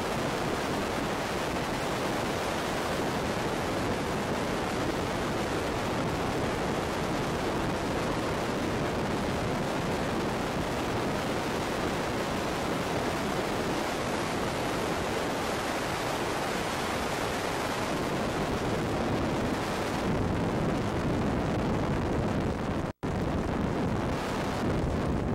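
Steady rush of freefall wind over a skydiving camera's microphone. It grows heavier in the low end about 20 seconds in, and cuts out for an instant about 23 seconds in.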